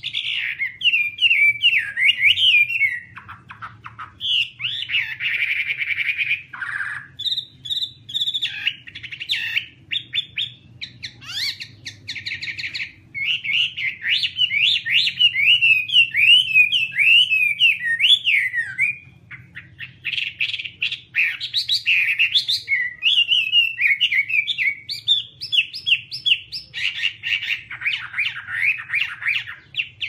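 Chinese hwamei (Garrulax canorus) singing a long, varied song of quick notes sweeping up and down in pitch, in phrases broken by short pauses.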